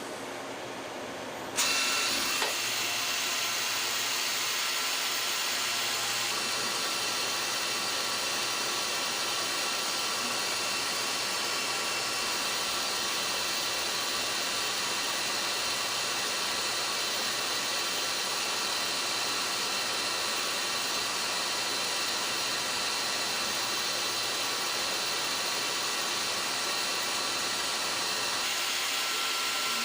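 CNC Swiss-type lathe running and machining: a steady mechanical whir and hiss with a few faint steady tones. It steps up suddenly in loudness about a second and a half in, then holds level.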